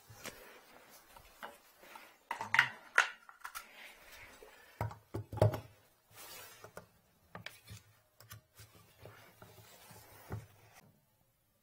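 Metal hand tools clinking and knocking against a bathtub and its drain fitting as they are picked up, used and set down: a string of separate clicks and knocks, the loudest a few about two and a half to five and a half seconds in.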